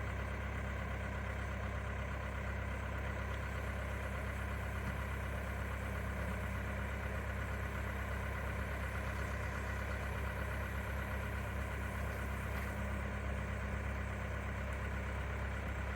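Truck engine idling steadily, a constant low drone.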